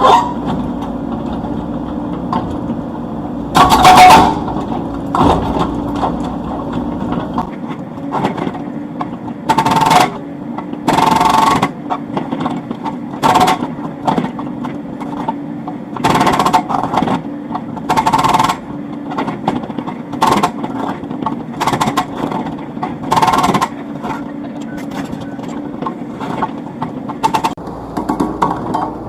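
Komatsu PC78US excavator's engine running steadily while its hydraulic breaker hammers in short, irregular bursts of under a second each, about fifteen times, the loudest one about four seconds in.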